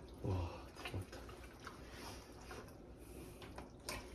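Quiet handling sounds of raw meat and kimchi being laid by hand into a stainless-steel stockpot, with soft scattered clicks and a sharp click near the end. A brief low vocal sound, like a grunt or breath, comes just after the start.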